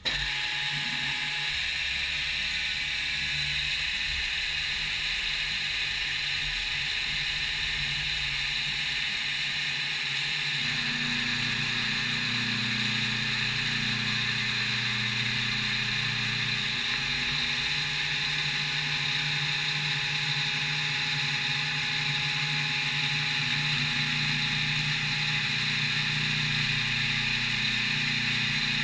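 CNC milling machine running through a cut, a steady whir with a lower hum that changes pitch about ten seconds in.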